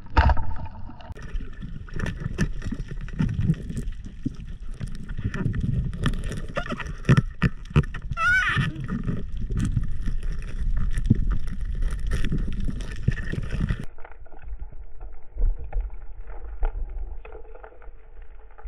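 Underwater audio of spearfishing in a rock hole. A sudden loud thump comes at the start, then a run of knocks, clicks and scraping of the speargun and shaft against rock over a rumbling wash of water. A brief wavering tone comes about eight seconds in, and the noise drops abruptly to a quieter hiss about three-quarters of the way through.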